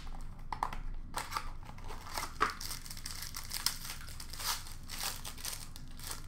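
An Upper Deck SP Game Used hockey card box and its pack being torn open by hand: irregular crinkling and tearing of the wrapper and cardboard, thinning out near the end.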